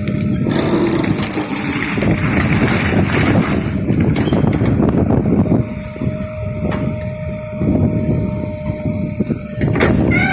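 Backhoe loader running, its engine working with a steady whine over it, and a rough crackling noise that is heaviest in the first half and eases off about halfway through.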